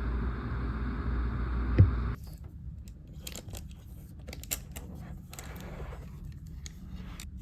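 Small metal watchmaking hand tools clicking and scraping lightly at the bench, with a run of quick clicks a few seconds in. A steady low hum cuts off about two seconds in.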